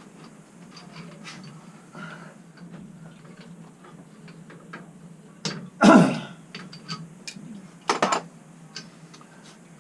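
Metal tools and pipe fittings clinking and tapping during plumbing work, with two louder clanks about six and eight seconds in, over a low steady hum.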